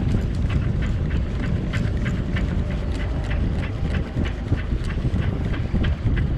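A boat engine running under way, a steady low rumble, with irregular sharp knocks and splashes, a few each second, from water hitting the hull.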